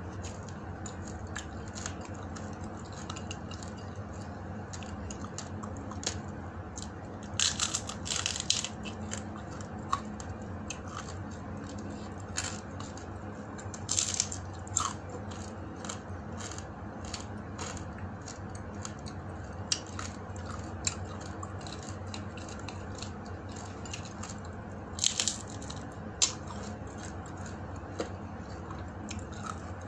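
Close-up eating sounds: bites and crunching of crispy fried dried fish in a few short bursts, with scattered small clicks, over a steady low hum.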